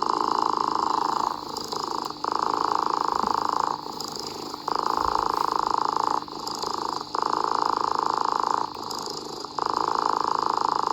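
Domestic cat purring steadily, in a regular cycle of louder stretches of a second and a half or so broken by shorter, quieter dips, about five louder stretches in all.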